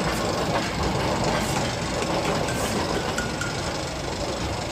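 Roller coaster train being hauled up its lift hill by the chain lift, a steady mechanical running sound.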